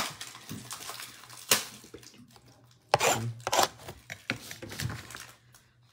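A trading-card blaster box, cardboard with plastic wrap, being handled and torn open: a series of sharp clicks, crackles and tearing noises, the loudest about a second and a half and three seconds in.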